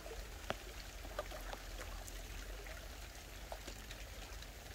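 Shallow muddy field water trickling and lightly splashing as hands work in it, with a few faint drips or ticks, the clearest about half a second in.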